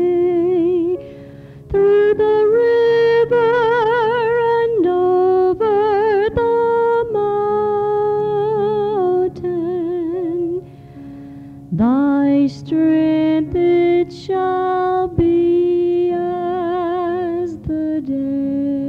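A hymn tune hummed by a single voice, long held notes with wide vibrato and slides between pitches, over a soft steady accompaniment.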